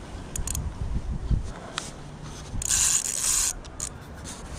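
A fabric jacket sleeve rubbing and brushing right against the camera's microphone: close handling noise of scraping and rustling, with a few sharp clicks and low knocks. The loudest part is a harsh scrape lasting about a second, starting near the middle.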